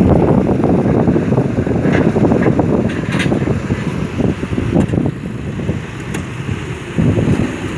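Caterpillar 320D excavator's diesel engine running while the operator works the boom and bucket, with wind rumbling on the microphone.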